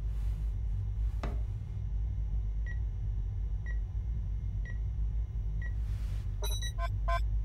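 Steady low electronic hum of a control room with a short noise about a second in. A soft computer beep sounds four times, about once a second, followed near the end by a quick flurry of bleeps from the consoles.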